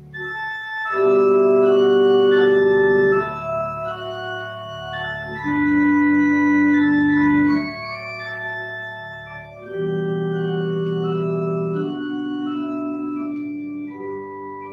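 Church organ playing slow, held chords, swelling louder about a second in, again around six seconds, and again around ten seconds.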